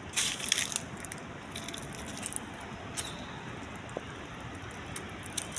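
Steady outdoor background noise, with a short rustle and a few clicks just after the start and one more click around three seconds in.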